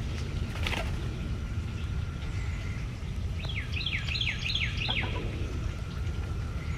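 Outdoor background with a steady low rumble. About three and a half seconds in, a small bird sings a quick run of about eight high chirps, each falling in pitch.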